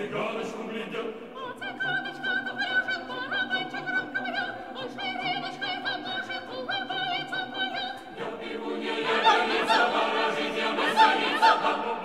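Mixed choir singing a cappella in short, quick repeated notes, swelling louder and fuller about eight seconds in.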